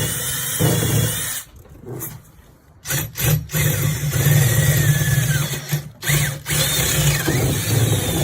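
Power drill boring half-inch holes into timber, enlarging pilot holes. It runs in bursts: a stretch, a pause, a few quick triggers, then two long runs. The motor's whine shifts in pitch under load.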